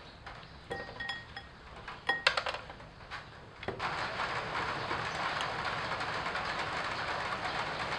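Utensils clinking and tapping against a ceramic bowl as shredded papaya salad is served into it, with a few short ringing knocks in the first half. From about halfway a steady hiss sets in.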